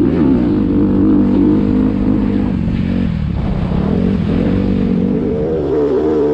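Off-road vehicle engine running under throttle. Its pitch dips about three seconds in and climbs again near the end.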